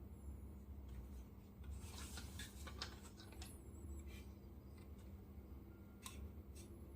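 Faint handling noises from a 1:18 diecast model car: a few light clicks and a brief rub or scrape about two to three seconds in, over a low steady hum.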